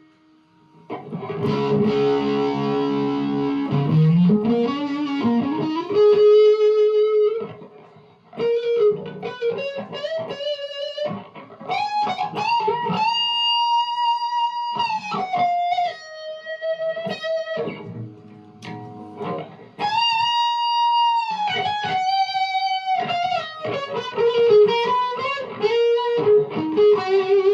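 Electric guitar played through a Behringer OD300 overdrive pedal into a Zoom G1Four multi-effects and a Vox MV50AC amp: chords with a sliding rise in the first few seconds, then single-note lead phrases with long sustained notes held with vibrato.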